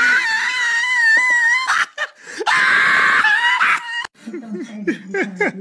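A cat yowling while its paw is held: two long, high-pitched, wavering cries. After a cut about four seconds in, a quieter, lower sound with short rising and falling notes takes over.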